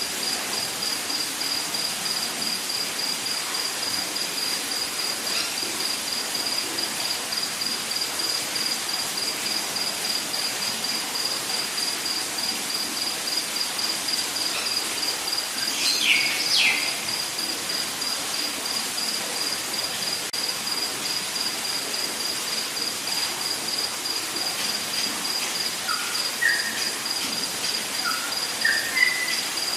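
Rainforest ambience: an insect trilling steadily in rapid pulses at one high pitch over a dense hiss of insect noise. About halfway through a bird gives two quick falling calls, and near the end a run of short bird notes steps upward.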